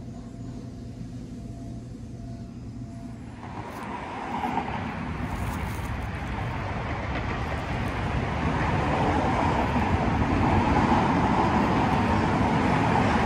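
A low steady hum for the first few seconds, then from about three and a half seconds in a broad rush of road traffic noise that grows louder.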